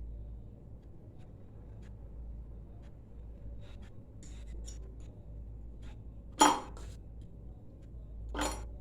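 Kitchenware clinking: a few light taps, then two sharp clinks about two seconds apart near the end, the first the louder.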